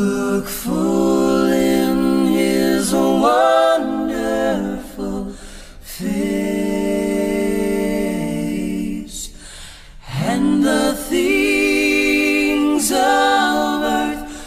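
Unaccompanied singing: a slow melody in long held phrases, with short breaths between them, about five and ten seconds in.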